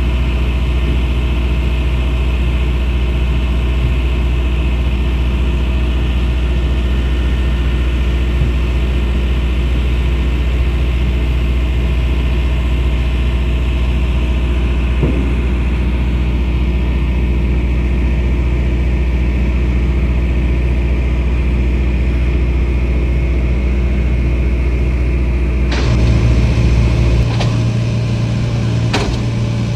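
Heavy diesel engine running steadily with a deep drone. About 26 seconds in, its pitch steps up as it speeds up, and a few sharp metallic knocks follow near the end.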